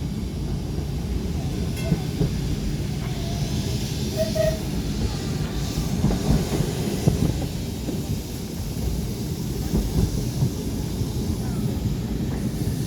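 Vintage electric tram running along the track: a steady low rumble of wheels and running gear, with a few short knocks from the rails.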